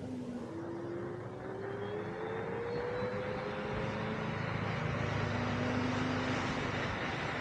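Extreme Bull Commander GT Pro electric unicycle's hub motor whining, the whine rising in pitch as it speeds up. Rushing wind noise grows steadily louder under it.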